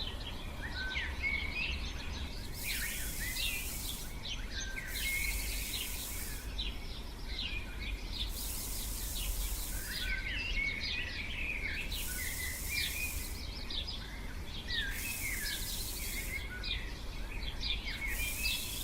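Several birds chirping and calling in short, quick phrases. A high, even hiss comes and goes in stretches of a second or two, about every three seconds.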